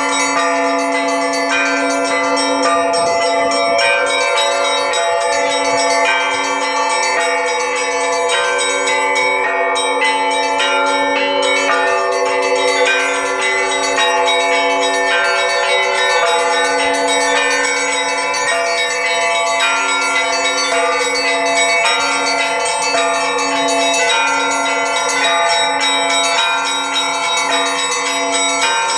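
A set of ten LITEKS 'Moscow' church bells, from 250 kg down to 4 kg, rung together in a continuous Russian-style peal. The deep ringing of a large bell holds steady underneath while the small bells are struck in quick, overlapping patterns above.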